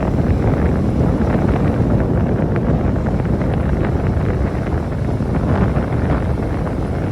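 Wind buffeting the microphone on a moving motorcycle, a loud steady rush with the vehicle's running noise underneath.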